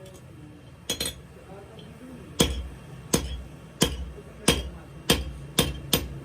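Hammer blows ringing on the metal of an axe head: a quick double strike about a second in, then a steady run of single strikes roughly every two-thirds of a second, coming closer together near the end.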